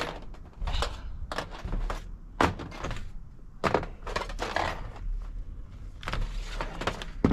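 Hand tools and hardware worked on a steel Unistrut rail: irregular short bursts of metal clicking, clattering and scraping, a dozen or so in a few seconds.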